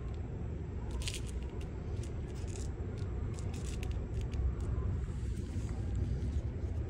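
Short scraping and crinkling handling sounds, several in a few seconds, over a steady low rumble.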